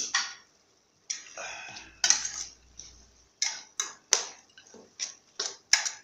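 Metal spatula scraping and knocking against a stainless steel pan while stirring a wet minced-chicken stir-fry, in about a dozen quick, irregular strokes.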